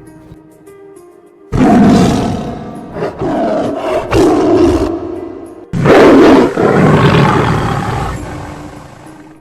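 A tiger roaring and growling, twice: a long roar with several surges beginning about one and a half seconds in, then a second that starts abruptly around six seconds in and slowly fades. Faint music lies underneath.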